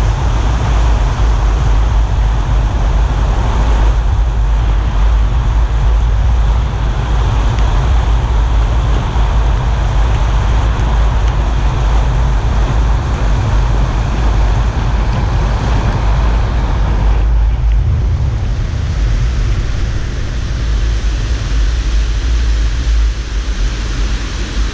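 Car driving on a wet road: steady tyre and road noise with a heavy low wind rumble.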